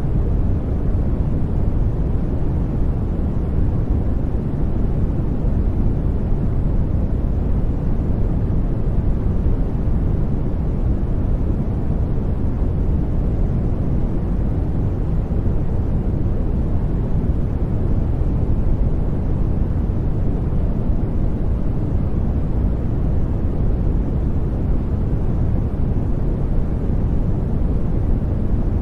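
Steady sleep-masking noise track, white noise blended with gentle rain: an even, deep hiss at constant volume with no changes or spikes.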